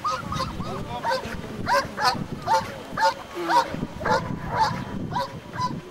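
A working dog barking over and over, about two short, high barks a second, without a break.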